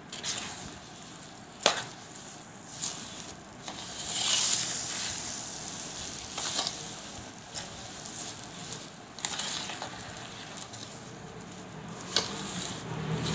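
Steel spoon stirring and scraping oil-moistened ground pickle spices and salt in a large stainless-steel bowl. Scattered sharp clinks of spoon on bowl come through it, the loudest a couple of seconds in, with a longer gritty scrape about four seconds in.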